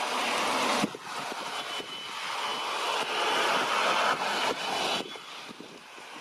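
Jet airliner engines with strong wind on the microphone: a loud, steady rush with a faint high turbine whine. The level drops suddenly about a second in and again near the end.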